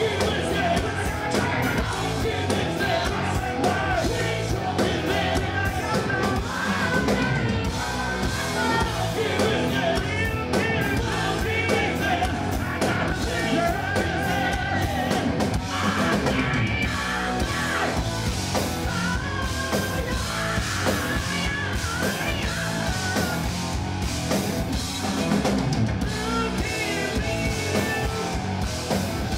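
Live hard rock band playing loud, with drums, bass guitar and a male lead singer's vocals.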